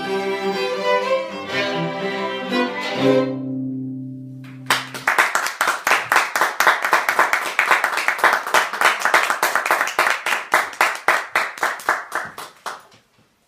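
A string quartet of violins, viola and cello plays the closing bars of a piece, ending on a long held low chord. Applause follows about five seconds in and lasts about eight seconds.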